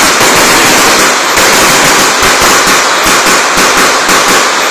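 Loud, dense crackling made of many rapid pops running together.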